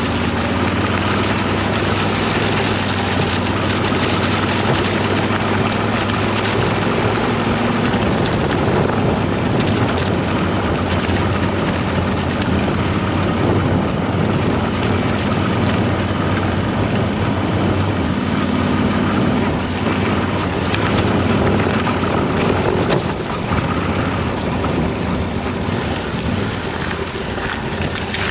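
Yamaha Ténéré 700's parallel-twin engine running steadily as the bike rides a rough gravel track, with wind on the microphone. Near the very end the bike splashes into a muddy puddle.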